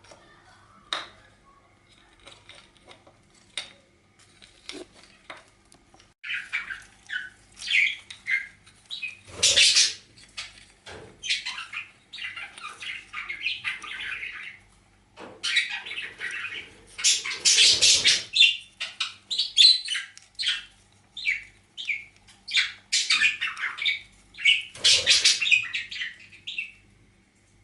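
Pet birds chattering and squawking in rapid bursts during courtship, the male calling around the hen. Sparse short clicks for the first few seconds, then the chattering starts and comes in several loud spells.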